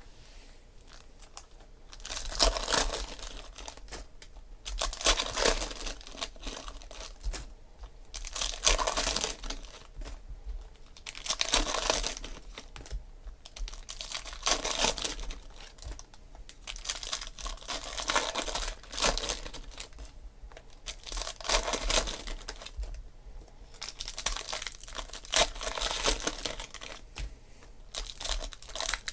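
Foil trading-card packs (Panini Prizm Football Jumbo) being torn open and crinkled by hand, one after another. There are about nine bursts of crackling foil, each a second or so long and coming every two to three seconds, starting about two seconds in.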